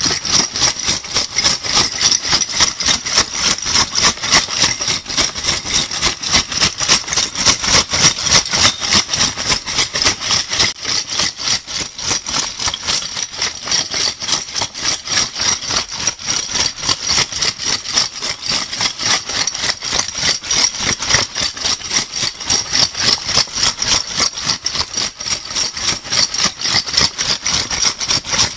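Metal crown bottle caps shaken together, rattling steadily as a dense run of clinking clicks.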